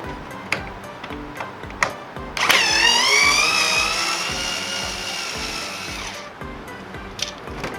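Cordless electric screwdriver motor running for about four seconds, starting about two and a half seconds in, its pitch dipping then rising and holding steady. Background music with a steady beat plays throughout.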